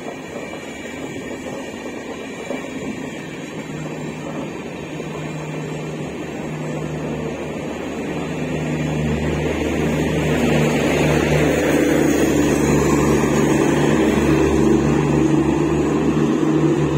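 Kerala Express LHB coaches rolling past on the track with a steady rumble of wheels on rail. A low steady hum joins in and grows louder from about halfway, as the rear power car comes by.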